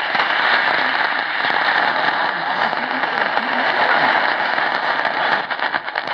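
AM radio static from a Tecsun PL-680 portable receiver's speaker, tuned to the medium-wave band near 870 kHz: a dense hiss and crackle with a faint distant station's voice buried under it. About five seconds in, the noise thins and starts to pulse rapidly.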